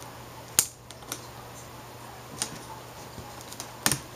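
Sharp plastic clicks and snaps as the black plastic frame of an LCD panel is worked loose from its clips. There is one loud click about half a second in, a few lighter ones, and a quick double click near the end.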